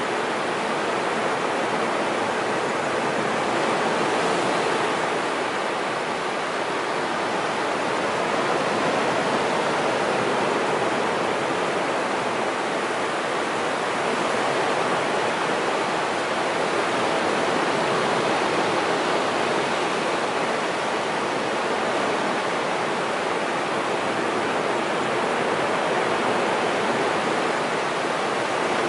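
Ocean surf breaking and washing up a flat sandy beach: a steady hiss of water that swells and eases gently every several seconds.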